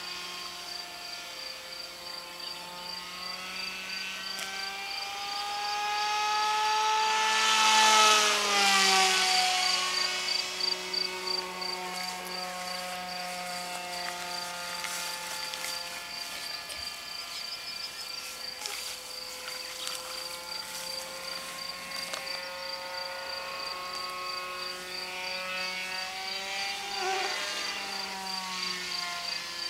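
RC model F-16 jet's Speed 600 electric motor whining in flight. Its pitch falls as the model passes close about eight seconds in, the loudest moment, and falls again on a second, quieter pass near the end.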